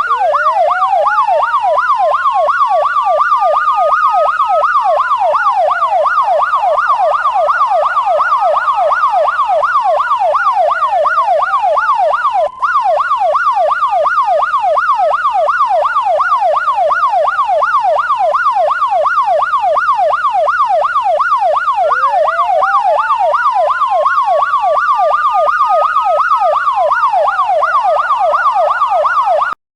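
Emergency vehicle siren sounding two patterns at once: a fast yelp sweeping up and down about three to four times a second, and a slow wail that rises over a few seconds and drops back, repeating about every five to six seconds. The sound cuts out for an instant near the middle.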